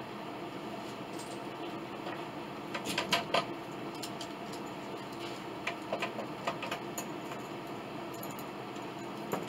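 Steel C-clamps and bar clamps clinking and clicking as they are set and tightened on a glue-up, with a cluster of sharp clicks about three seconds in and scattered lighter ticks a few seconds later, over a steady low shop hum.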